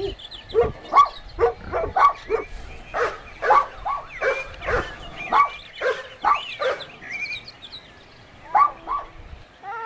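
Dog barking repeatedly, about two or three barks a second, then a short pause and two more barks near the end.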